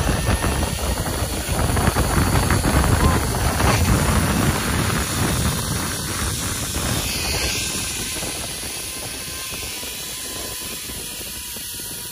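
Wind rushing and buffeting over the microphone with the zip-line trolley running along the steel cable, a steady rush that eases off over the last few seconds as the rider slows toward the landing platform.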